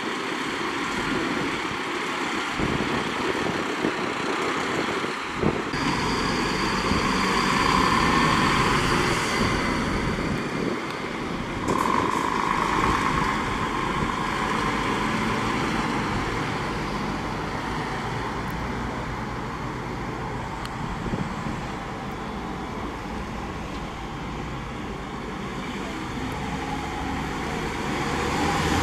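Steady vehicle engine noise, with a higher-pitched tone swelling about six seconds in and again about twelve seconds in.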